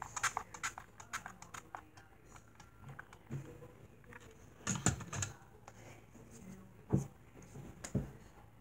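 Fast clicking of buttons on a small handheld device, pressed rapidly for about two seconds. Then a few louder knocks and thumps as the device is handled and set down, the loudest about halfway through and about two-thirds in.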